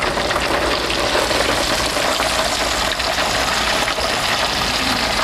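A large pot of oil heated to 350 degrees sizzling and bubbling steadily as a whole deep-fried turkey is lifted out of it on a hook.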